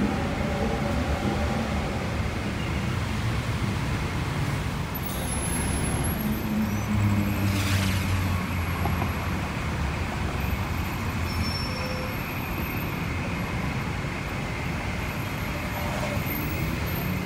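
City street traffic: a steady rumble of vehicles, with one passing close about eight seconds in.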